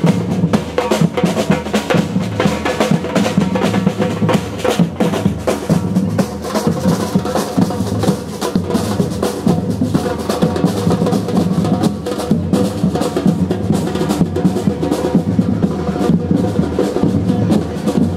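Street drum band beating large painted bass drums and smaller drums with mallets and sticks: a fast, continuous, dense rhythm of many strikes.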